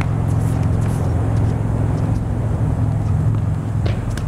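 A loud, steady low droning hum like a running engine or machine, with a tennis racket striking a ball near the end.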